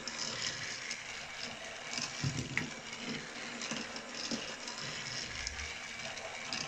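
Battery-powered Mattel toy train engine running around a plastic track: its small motor runs steadily and its wheels roll over the track, with a couple of soft knocks about two seconds in and again past five seconds.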